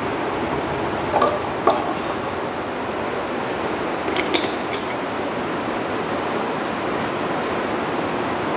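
A plastic cooking-oil bottle being picked up and handled, giving a few light knocks and clicks about a second in and again around four seconds in, over a steady hiss.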